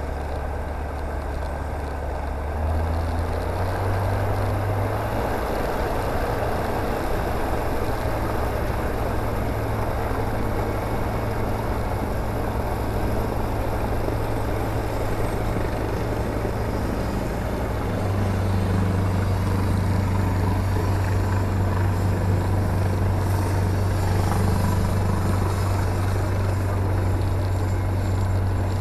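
The Rotax 912 engine and propeller of a Czech Sport Aircraft PS28 Cruiser light aircraft, heard from inside the cabin while taxiing. The engine runs steadily, its note stepping up about three seconds in and again a little past halfway as power is added.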